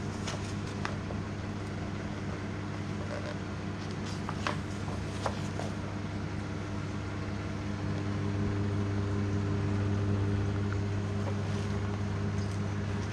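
Whirlpool crisp-and-grill microwave oven running mid-cook: a steady low electrical hum with fan noise, growing a little louder about two-thirds of the way in. A few light clicks sound over it.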